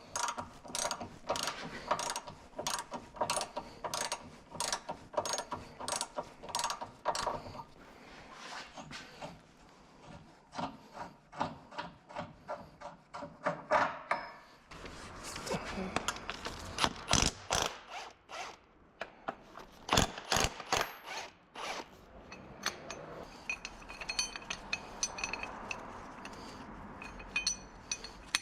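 Hand ratchet wrench clicking through repeated short strokes as a socket turns a bolt, with a couple of brief pauses between runs.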